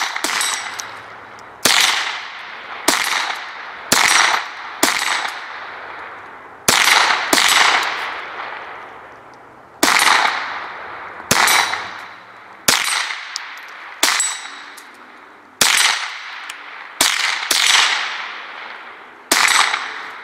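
.22 rimfire rifles firing single shots at uneven intervals, about fifteen in twenty seconds, each a sharp crack with a long fading echo.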